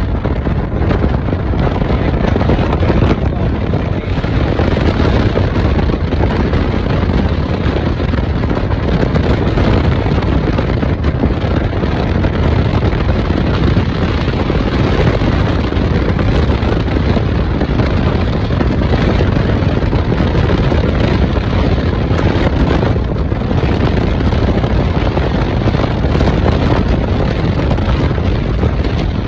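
Steady rush of wind and road noise from a car driving along at speed, heard from the passenger side of the car, with no breaks.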